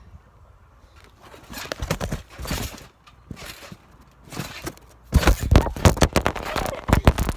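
Thumps and footfalls of someone bouncing and tumbling on a trampoline: a short run of knocks about two seconds in, then a louder, dense run of thumps from about five seconds in to the end.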